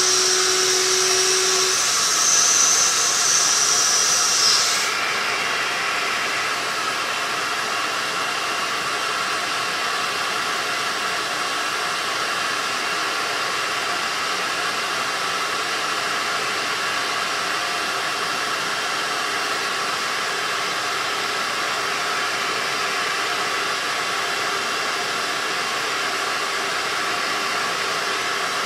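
Shop vac running steadily, drawing air through a Dremel VRT1 vacuum-powered rotary tool whose air turbine spins with a high whine. About five seconds in the whine cuts off and the sound drops as the sanding drum stalls against the wood, leaving the shop vac's steady rush: the tool has too little power to sand.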